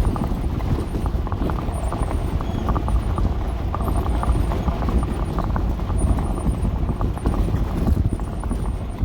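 Dodge A108 van driving over a rough, muddy road: a steady low rumble with dense, irregular rattling and knocking.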